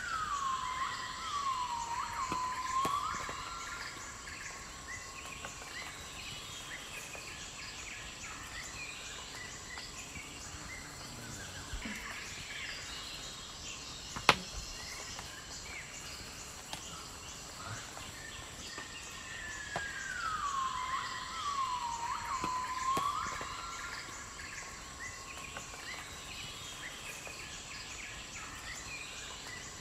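Outdoor bush ambience with small birds chirping. Twice, at the start and again about two-thirds of the way through, a bird call slides down in pitch and then dips in a few swooping notes. A single sharp click comes about halfway.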